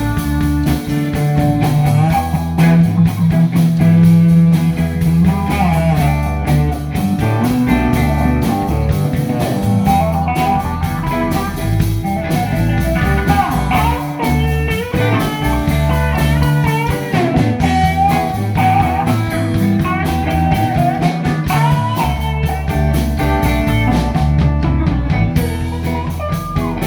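Instrumental break of a blues-rock band: a lead guitar solo with bent, sliding notes over steady bass and drums.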